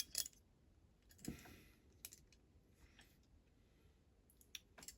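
Sparse light clicks and taps, about eight, from small toy-van parts being handled on a bench.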